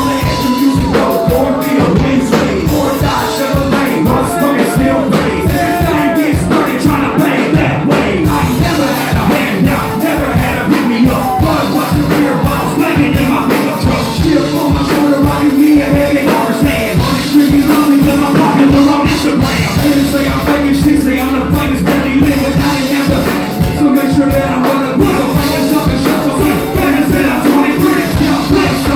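Loud live music: a vocalist singing or rapping over a band or backing track with a steady beat, with some yelling from a crowd.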